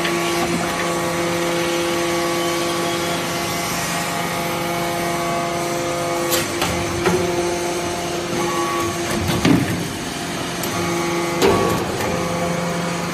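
Hydraulic metal-chip briquetting press running: a steady pitched hum from its hydraulic power unit as the ram presses alloy shavings into briquettes. The hum breaks off briefly past the middle and comes back, with a few sharp clicks and knocks along the way.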